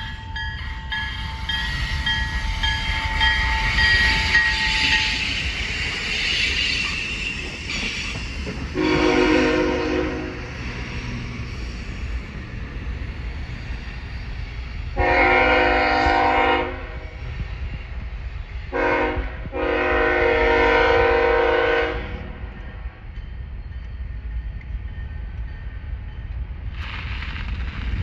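Multi-chime train horn sounding five times over the steady running noise of passing trains. One blast comes about nine seconds in, then a long, a short and a long blast of about two seconds each around the middle, and another starts near the end.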